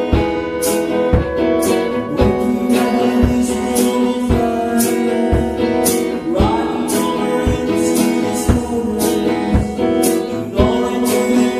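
Acoustic indie-rock song: strummed acoustic guitar over a steady beat of percussion hits about twice a second, with a voice singing.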